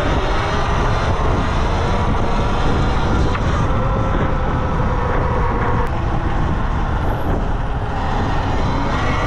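Riding noise on a Talaria Sting R MX4 electric dirt bike: heavy wind rumble on the rider's microphone and a faint whine that drifts up and down in pitch as the speed changes.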